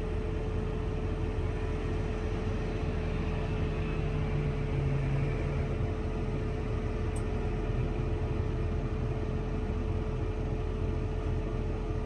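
Heavy farm machine's engine running steadily, heard from inside the cab, with an even low rumble and a constant whine.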